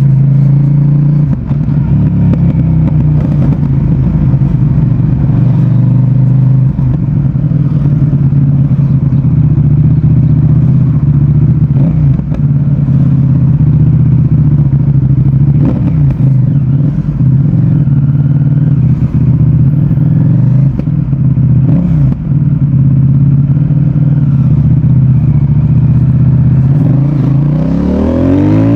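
CFMOTO 800NK Advanced motorcycle's parallel-twin engine and exhaust running at a steady pitch under way, with a few brief breaks and clicks along the way, then revving up with a rising pitch near the end.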